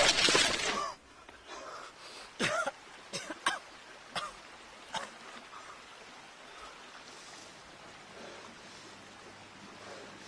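The tail of a loud blast dies away in the first second. Then a wounded man coughs and gasps about five times over a few seconds, choking on blood in his mouth.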